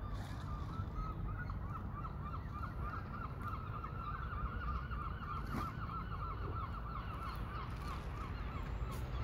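A flock of birds calling: many short, repeated calls overlap in a dense run that is thickest in the middle and thins out near the end, over a steady low rumble.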